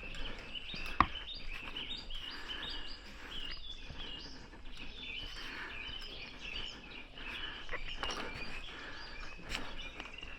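Small birds singing, with many quick chirps in a steady run. A single sharp click about a second in.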